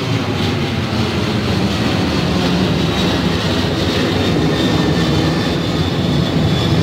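Boeing 737 airliner's twin jet engines at takeoff power as it climbs out after takeoff: a loud, steady roar.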